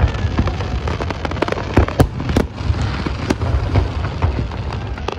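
Fireworks display: aerial shells bursting in many sharp bangs in quick, irregular succession over a steady low rumble.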